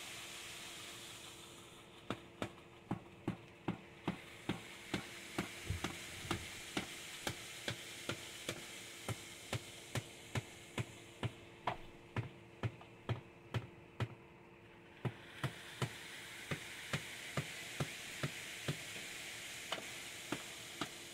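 Concrete wall forms being tapped with a hammer at about two knocks a second, to make the fresh concrete settle and fill every gap. The tapping pauses briefly about two-thirds of the way through.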